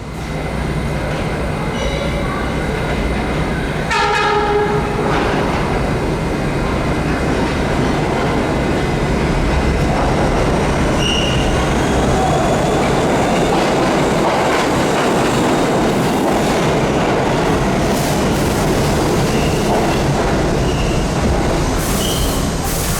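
R68 subway train running, with steady rail and wheel noise. About four seconds in a short horn note sounds and the noise grows louder, and a faint rising whine follows as the train picks up speed.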